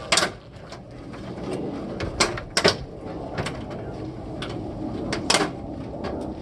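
Several sharp clicks and snaps from handling the copper degaussing coil of a CRT television, the loudest a few seconds apart, over a low background.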